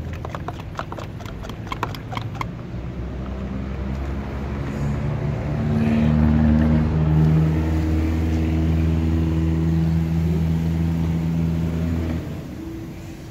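Hand pressure garden sprayer being pumped up, its plunger clicking about three to four times a second for the first two and a half seconds. Then a motor engine hums steadily, grows louder, and cuts off suddenly about a second before the end.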